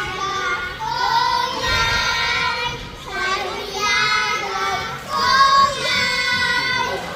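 Group of children singing a birthday song together in three drawn-out phrases on high, held notes.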